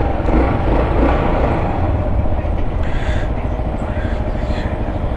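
Steady low rumble and road noise of a bike being ridden through traffic.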